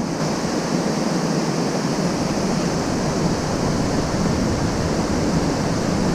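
Small waterfall pouring into a pool: a steady, even rushing of water.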